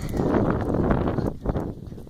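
Wind buffeting a handheld camera's microphone, a loud uneven low rumble that dies away about a second and a half in.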